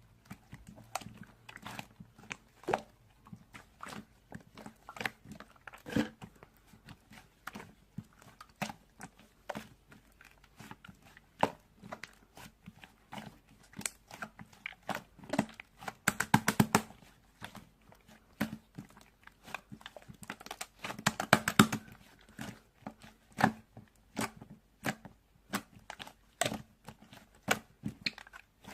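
Slime being squeezed and pressed by hand: irregular sticky clicks and small pops, with two denser stretches of rapid crackling past the middle.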